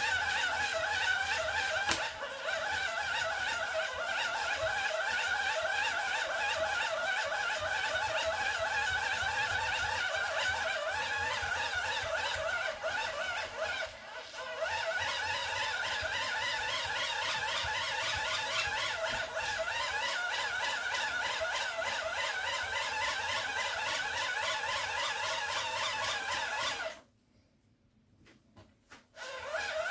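Hand-crank dynamo of an emergency wind-up radio being turned steadily, its small gears whirring, while it charges a phone over USB. The whirring falters briefly about halfway and stops suddenly near the end.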